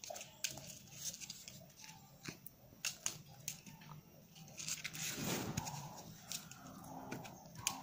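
A kitten's claws scratching and tapping at a dried bottle gourd and rustling the cloth under it: irregular sharp clicks and scrapes, with a longer scratchy rustle about five seconds in.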